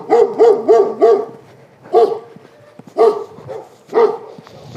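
Dog barking: a quick run of four barks, then single barks about a second apart. The barks are loud.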